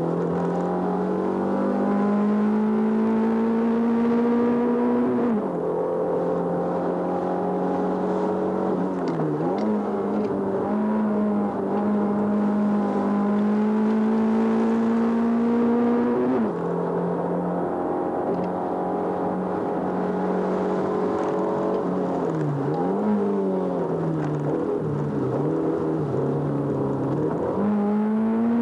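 Hillclimb race car's engine heard from inside the cabin, driven hard. The revs climb steadily through each gear and drop or dip sharply at gear changes and lifts for the bends, about five times.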